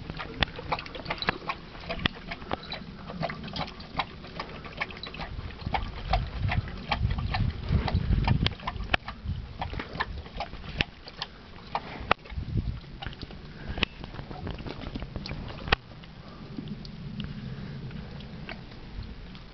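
Great Dane lapping water from a steel bowl: quick, irregular wet laps and slurps, heaviest midway, thinning out about three-quarters of the way through as the dog lifts its head.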